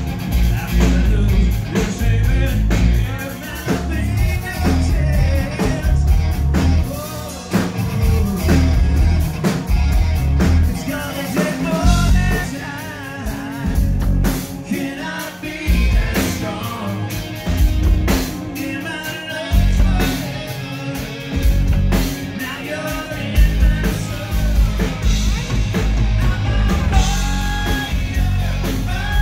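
Live rock band playing loud amplified music: drum kit, electric guitar, bass guitar and keyboards, with a male lead singer's voice over them.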